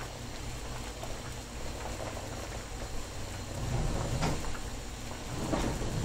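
Saucepan of water at a rolling boil on an electric stove: steady bubbling and rumbling, louder for a moment about four seconds in and again near the end.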